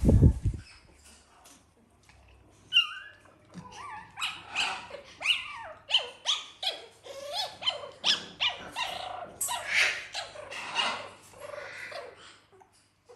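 Dog whining and yelping in a quick run of short, high-pitched calls that bend up and down in pitch, after a loud low thump at the very start.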